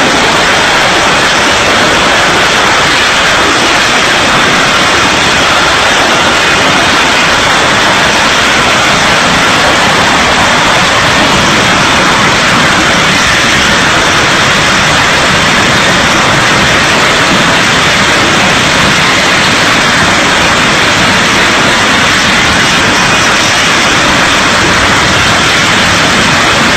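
Loud, steady jet engine roar, even and unbroken throughout.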